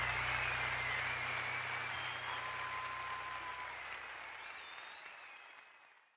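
Audience applause with a few whistles at the end of a live song recording, fading out steadily to silence by the end.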